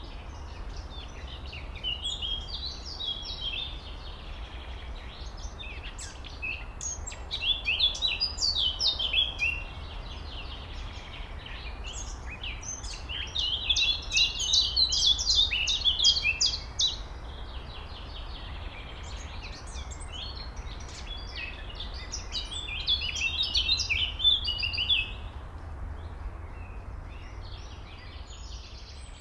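Songbirds singing, several bursts of quick, high chirping phrases, the loudest about a quarter, half and four-fifths of the way through, over a steady low rumble.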